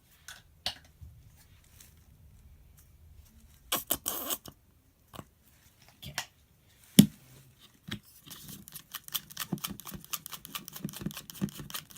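Glue slime mixture being stirred in a container as paint is mixed in: scattered scrapes and taps, one sharp knock about seven seconds in, then rapid irregular clicking of the utensil against the container.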